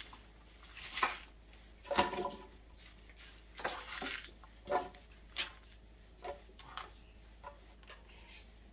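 A string of separate light knocks and taps, about ten in all: a kitchen knife striking a wooden cutting board as green onions are cut into chunks, and the chunks being dropped into a plastic blender jar.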